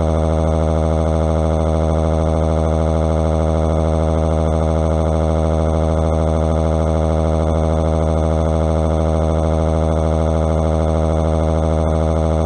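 Text-to-speech voice crying one long, unbroken 'waaaa' wail held at a single flat pitch, with no rise, fall or breath.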